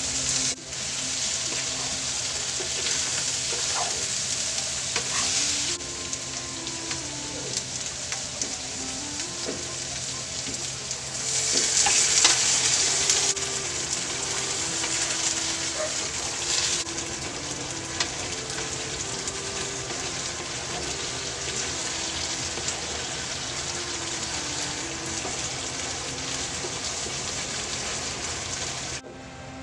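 Tofu and mixed vegetables sizzling in a hot wok while a spatula stirs and tosses them; the sizzle swells louder for a couple of seconds about midway, then settles back.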